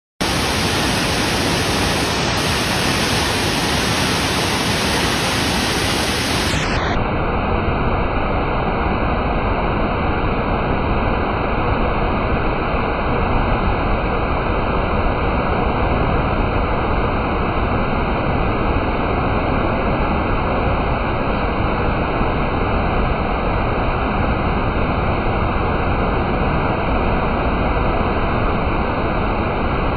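Tall waterfall cascading in tiers over rock: a loud, steady rush of falling water.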